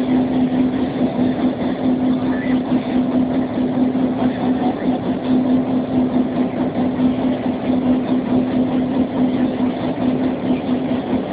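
A JŽ class 661 'Kennedy' diesel locomotive, an EMD G16 with a two-stroke V16 diesel, running as a steady, unbroken drone with a strong, constant low hum.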